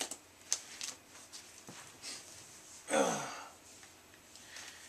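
A few sharp taps and rustles of comic books being handled and set down, then about three seconds in a man's short breathy sigh falling in pitch.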